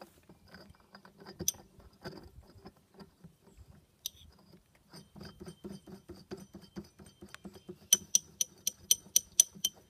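Small metal clicks and scrapes of a flash-charge bayonet attachment on a Springfield rifle being reloaded by hand. Near the end comes a quick, even run of sharp, ringing metallic clicks, about four a second.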